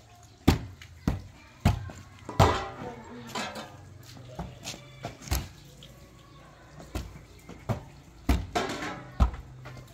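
Hands slapping a light plastic ball back and forth in a volleyball-style game: a series of sharp hits at uneven gaps, about a second or two apart, with short calls and laughs between them.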